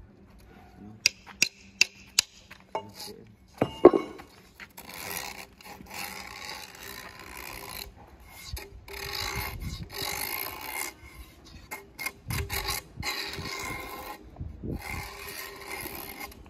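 Chalk rubbed across the surface of a log in long scratchy strokes with short pauses, marking it for sawing. A few sharp clicks and a louder knock come first.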